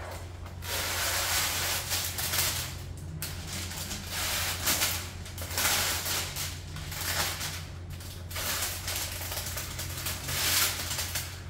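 Thin plastic window privacy film crinkling and rustling in irregular swells as it is unwrapped and handled.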